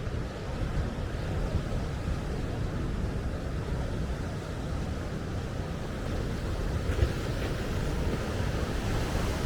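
Sea surf washing onto the beach, with wind buffeting the microphone as a low rumble. A short thump comes about seven seconds in.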